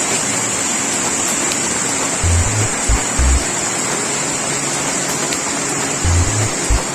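Steady rushing roar of a waterfall in full flow, under background music that brings in short deep bass notes a few times.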